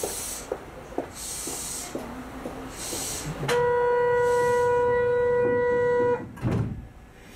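Train station departure buzzer sounding one steady, level tone for about two and a half seconds from about halfway in, followed by a low thud near the end as the train doors close.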